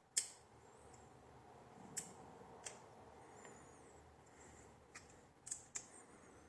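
Small metal clicks and snaps of a multitool's folding tools being handled, opened and locked: about six sharp clicks, spaced irregularly a second or more apart.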